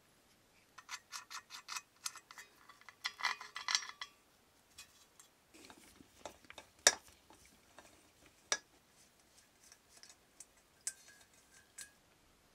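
Metal parts of a 1930s Calor copper-and-cast-iron radiator clicking and clinking as they are handled and fitted together. A quick run of ticks about a second in and a rattle around three seconds are followed by scattered sharp clicks, the loudest near the middle.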